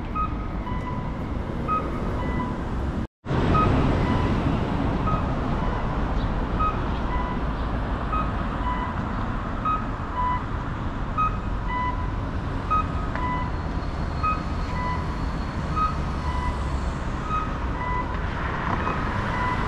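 Audible pedestrian-crossing signal at a Japanese intersection: short electronic tones, a higher and a lower one in turn, repeating at an even pace, telling walkers the light is green. Steady traffic noise runs underneath.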